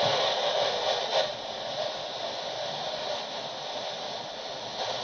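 Static hiss from a Uniden handheld CB radio's speaker as it steps through the channels with no station coming in. The hiss drops to a lower level with a short click about a second in, then holds steady.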